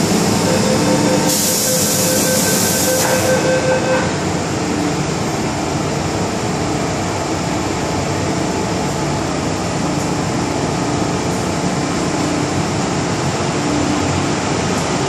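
MTR M-Train doors closing: a steady warning tone sounds for about three seconds, with a burst of hiss as the doors shut. The train then pulls out of the station, its running noise steady.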